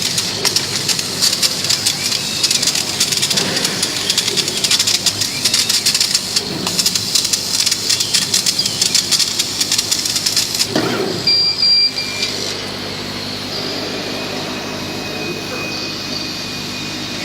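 CO2 laser cutting machine running while it cuts rubber: a dense, rapid crackling hiss over the machine's hum. About two-thirds of the way through, the crackling stops suddenly, leaving a steady mechanical hum with a faint high whine.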